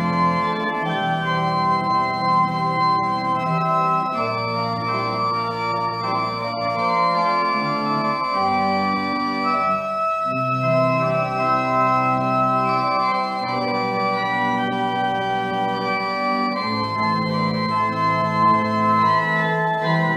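Church organ playing slow, sustained chords over held bass notes, with a short break between phrases about halfway through.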